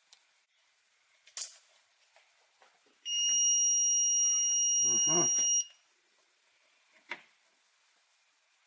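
Brymen BM257 digital multimeter giving its long power-on beep as it is switched on: one steady high beep lasting about two and a half seconds, with a low handling rumble under its end. Short handling clicks come before and after it.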